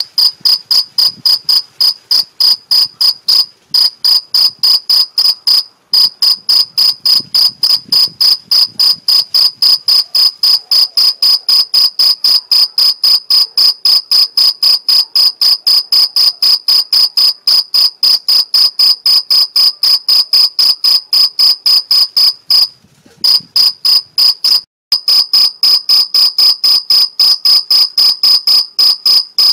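Male field cricket stridulating its calling (mating) song, rubbing its forewings together: a close, loud, steady run of short high-pitched chirps, several a second, with a few brief pauses.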